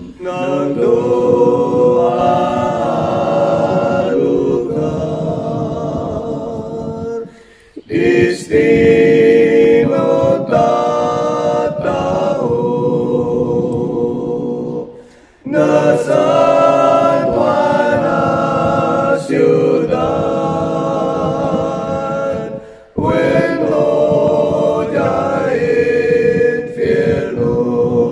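One man's voice layered into a four-part a cappella choir, singing an Ilocano hymn. It runs in long sung phrases, with a short break for breath about every seven or eight seconds.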